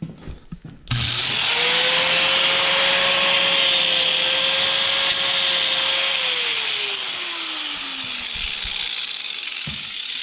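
Handheld power tool starting abruptly and scrubbing an ORV sticker off the buggy, with a loud rough rubbing hiss. Its motor whine holds steady, then slowly sinks in pitch over the last few seconds before it stops.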